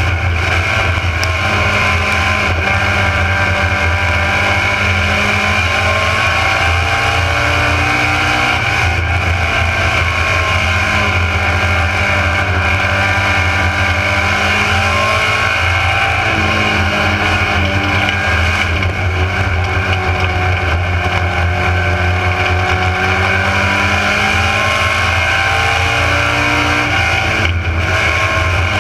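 Mini stock race car's four-cylinder engine heard from inside the car at racing speed. It revs up and eases off every few seconds, the pitch rising and falling in a repeating pattern.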